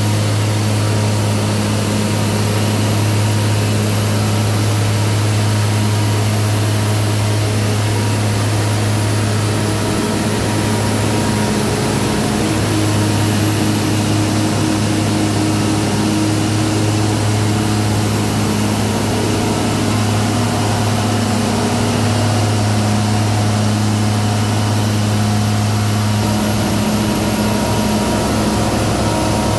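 Diamond Products PC-6000EC diamond grinding machine running at work on concrete road pavement, a loud, steady drone with a strong low hum, during a first pass of NGCS (Next Generation Concrete Surface) grinding.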